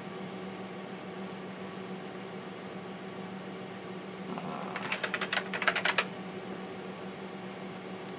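Quick burst of keystrokes on a TRS-80 Model 16B keyboard, about ten clicks in a little over a second about halfway through, over a steady hum from the running computer.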